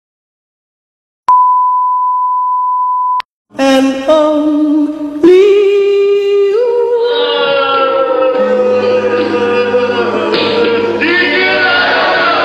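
A second of silence, then a steady high beep tone lasting about two seconds that cuts off sharply. Then voices start singing a jingle in stepping notes, with backing music joining in under them.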